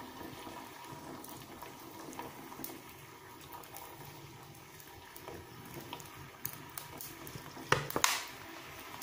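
Liquid in a pan on the stove: sweet soy sauce being poured into the simmering sauce, a faint steady liquid sound with small clicks, and a brief louder noise about eight seconds in.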